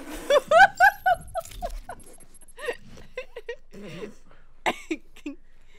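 High-pitched squealing laughter. It opens with a loud run of squeaky, rising-and-falling squeals in the first second, then breaks into quieter scattered laughs.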